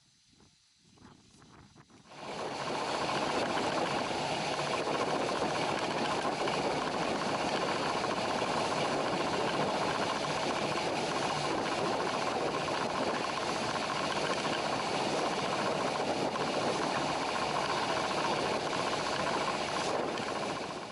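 Steady engine-and-rushing noise of a fishing boat under way, starting abruptly about two seconds in and cutting off sharply near the end.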